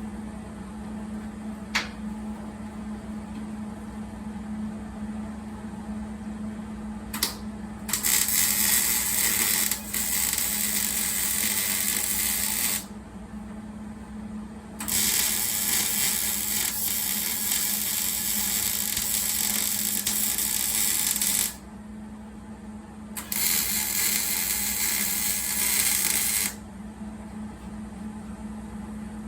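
Arc welding, most likely welding the nut into the frame for the new bed bolt. The arc starts with a brief tack at about seven seconds, then runs in three sizzling beads of roughly five, seven and three seconds, each starting and stopping abruptly, over a steady hum.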